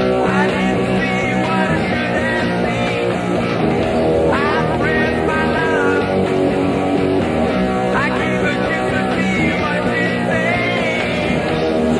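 Rock song with electric guitar, its lead line sliding up in pitch about four and eight seconds in.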